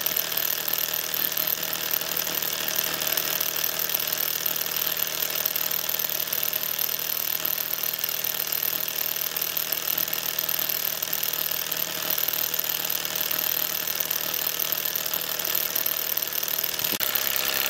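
Mamod MM2 toy steam engine's single cylinder running flat out with no speed control: a rapid, steady chuffing clatter over a steady hiss of exhaust steam.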